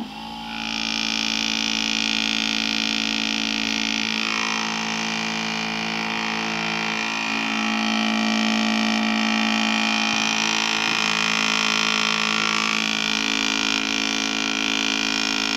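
Small brushed DC motor switched on and spinning the magnet rotor of a homemade generator, a steady electric whine and hum. It starts suddenly and grows a little louder about halfway through.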